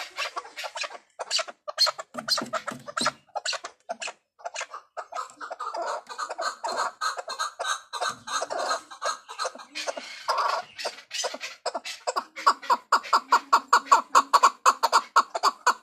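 Chukar partridge calling: a long series of short, rapid clucking notes that grows louder in the last few seconds.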